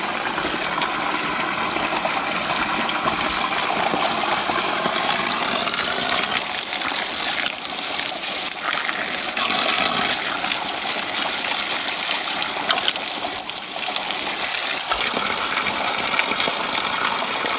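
Water pouring from a pipe spout and splashing onto stones: a steady, loud rush and spatter.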